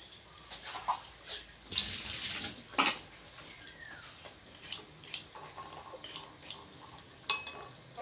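Red plastic peeler scraping over the flesh of a peeled papaya on a ceramic plate: a run of short wet scrapes and clicks, with a longer scrape about two seconds in.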